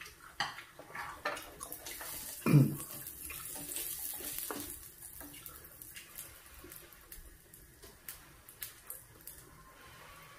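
Eating sounds at the table: chopsticks clicking, with wet mouth and food noises and a soft hiss for a few seconds. About two and a half seconds in comes a short falling hum from one of the eaters, the loudest moment.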